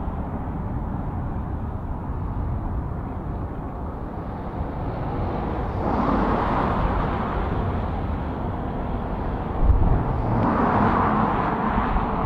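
Road traffic: cars passing close by, with two swells of tyre and engine noise, one about halfway through and one near the end, over a steady low rumble. A brief low thump about two-thirds of the way in.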